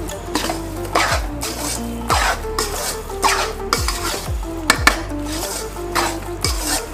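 Slotted metal spatula scraping round an aluminium kadhai, stirring wheat flour roasting in ghee, with a low sizzle underneath; the scraping strokes come about once or twice a second. The flour is at the stage where it starts to brown, so it is being stirred without pause to roast evenly.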